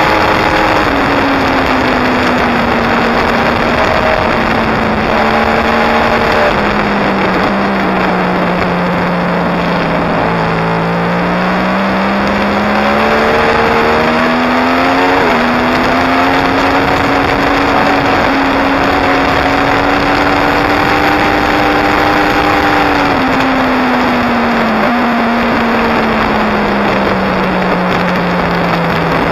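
A 2016 Yamaha R1's crossplane inline-four engine running hard on a track lap. Its note falls off about ten seconds in, climbs again under throttle, and drops once more near the end. Heavy wind rush over the bike-mounted microphone runs under it.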